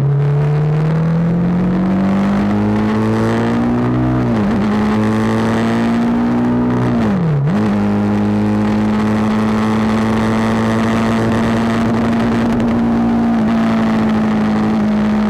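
BMW G 310 GS's single-cylinder engine under acceleration, its pitch rising, then dipping in revs briefly twice, about four and seven seconds in, before holding a steady pitch while cruising.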